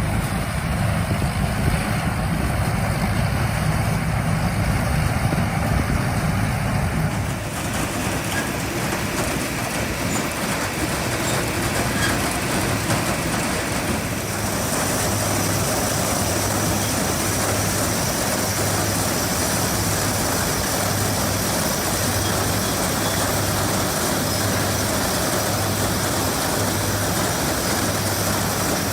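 Antique farm machinery running steadily, its sound changing about a third of the way in and again about halfway. Through the second half it carries a slow, even low pulse, a little under once a second.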